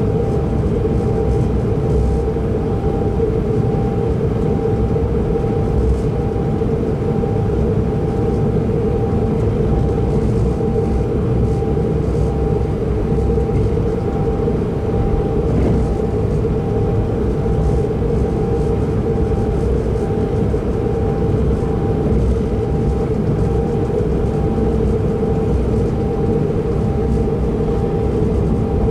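Steady running noise inside a Pendolino train travelling at speed: a low rumble of wheels on the rails with a constant hum and a thin steady tone over it.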